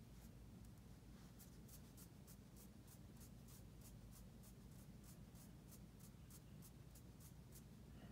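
Faint, rhythmic rubbing of a fingertip back and forth over dried matte liquid lipstick swatches on skin, about three to four soft scratchy strokes a second: a rub test of whether the lipstick fades or transfers. A low room hum lies under it.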